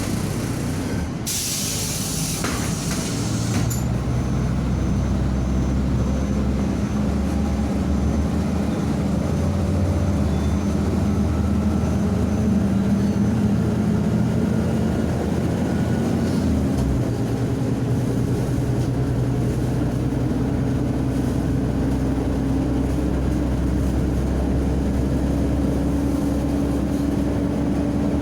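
MAZ-105.065 city bus: a loud hiss of released compressed air about a second in, lasting a couple of seconds, then the diesel engine running under load with its pitch climbing slowly as the bus pulls away and gathers speed.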